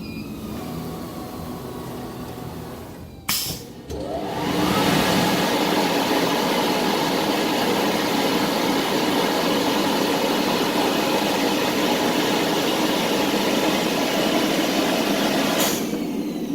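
CNC circular-knife fabric cutting machine: a low machine hum, then a click about three seconds in, after which a motor spins up with a rising whine into a loud, steady rushing run that cuts off suddenly near the end.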